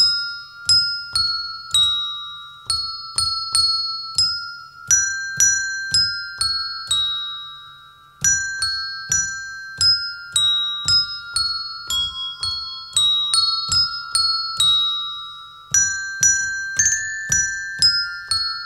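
A children's bell choir playing a melody on a set of colour-coded tuned bells: single clear struck notes about two a second, each ringing on and overlapping the next, with a brief lull about eight seconds in before the tune picks up again.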